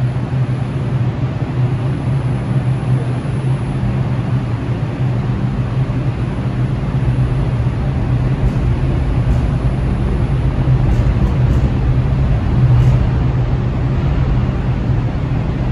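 New York City subway train running: a steady rumble with a strong low hum, with a few faint clicks in the middle.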